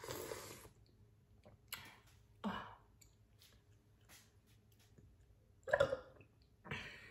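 Close-miked eating sounds: soft tofu stew slurped from a spoon and chewed, in several short bursts, the loudest about six seconds in.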